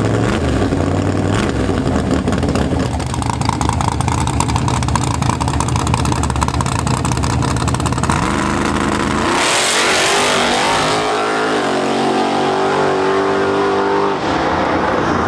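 A Ford Mustang drag car's engine held at steady revs with a rapid crackle at the starting line, then launching about eight seconds in and accelerating hard down the strip, its pitch climbing through the gears as it pulls away.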